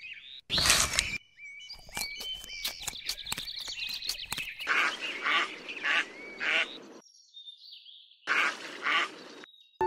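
Ducks quacking in a run of short calls about half a second apart, with small birds chirping and a quick series of sharp clicks.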